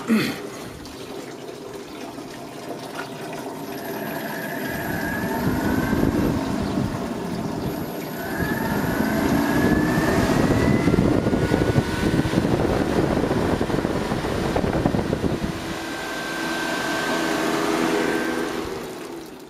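12-volt car radiator fan in a DC-powered evaporative swamp cooler running, with a steady rush of air. Its motor hum rises in pitch and grows louder a few seconds in and again around the middle, eases off, then settles to a steady hum near the end.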